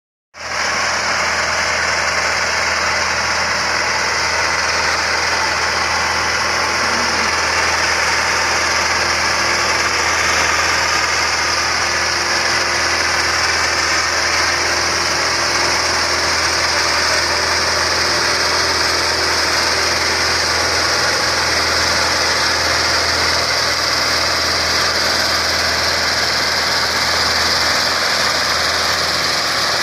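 MTZ-82 tractor's four-cylinder diesel running steadily while driving a rotary tiller through garden soil.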